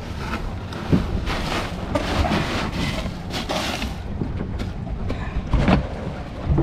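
Wind buffeting the microphone over the rumble of a boat at sea, with ice rattling and a few knocks as a fish is packed into an ice-filled cooler. The loudest knock comes near the end, as the cooler lid is brought down.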